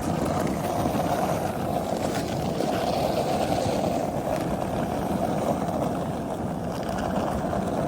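Skateboard wheels rolling steadily down an icy, snow-covered road, a continuous gritty rumble.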